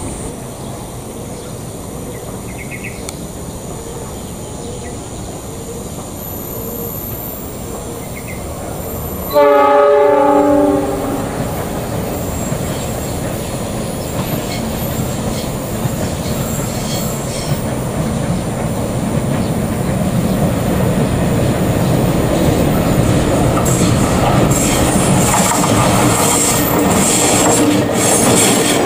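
A KAI CC 206 diesel-electric locomotive sounds one horn blast of about a second and a half, a third of the way in. Its engine rumble then grows steadily louder as the train approaches, and the wheels clatter over the rail joints as it passes close near the end.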